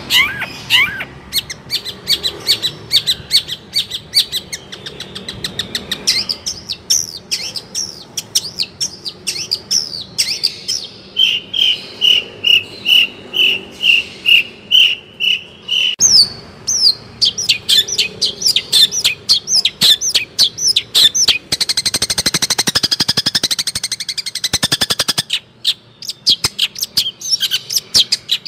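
Long-tailed shrike (cendet) singing a fast, varied song of sharp, downward-sliding chirps. In the middle it gives a run of evenly repeated notes about twice a second, and later a dense, rapid high trill.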